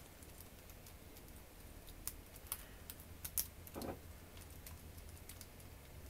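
Faint, scattered metallic clicks and light scraping of a lock pick rake being rocked against the pin stacks of a Master Lock M15 padlock while a tension wrench holds the plug.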